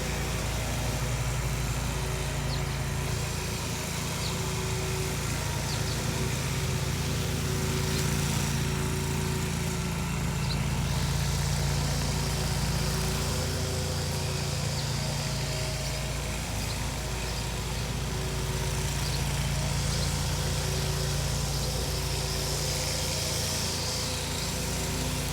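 Riding lawn mower's engine running steadily while mowing grass, a constant engine hum with the cutting deck's noise and no change in speed.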